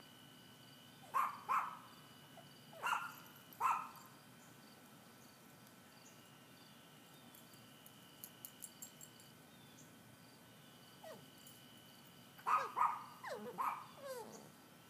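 Dog whining and yipping in short, high calls: a few early on, then a quick run of yelps and falling whines near the end.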